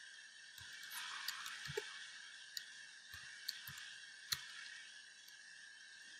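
Computer keyboard keystrokes, a scattered sharp click every half second or so, heard faintly over a steady hiss.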